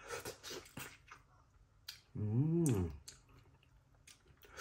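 Mouth noises of a person eating cooked squirrel meat off the bone: wet lip smacks and chewing clicks. About two seconds in comes one short hummed 'mm' that rises and falls in pitch.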